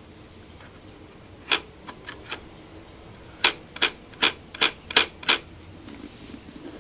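Sharp plastic clicks from the tinted sun-visor mechanism of a Schuberth C3 helmet: one loud click, a few faint ones, then a run of six loud clicks about 0.4 s apart. This is the rattle that the black plastic pieces of the visor mechanism make when they are not held stiffly enough.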